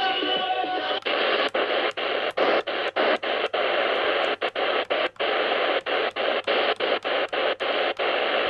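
Shortwave radio's speaker: the tail of a music broadcast on 6195 kHz for about the first second, then a steady hiss of static as the radio is fast-tuned up the band. The hiss is broken by brief dropouts about three times a second as the frequency steps.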